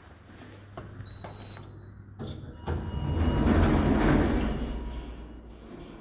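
Passenger lift's automatic sliding doors running: a low hum from the door drive, with the sound of the moving panels swelling to a peak about three to four seconds in, then fading.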